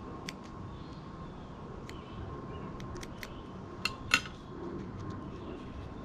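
Small scissors snipping thick craft foam: a few short, sharp snips spread over several seconds, the loudest about four seconds in, as a piece is trimmed and a little V notched into it.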